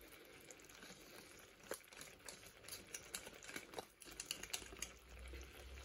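Katsu curry sauce simmering in a non-stick frying pan: faint bubbling with scattered small pops and ticks.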